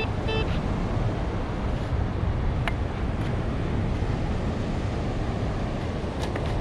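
Wind buffeting the microphone over surf noise on the beach. In the first half second a metal detector gives two short pitched beeps, and a few faint clicks come later.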